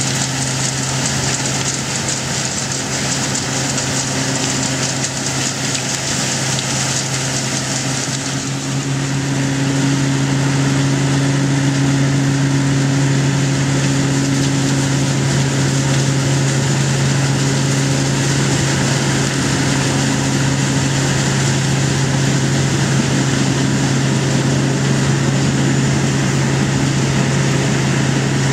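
Engine of a hazelnut harvest machine running steadily at constant speed, with a dense rushing noise over it. The sound grows louder about nine seconds in.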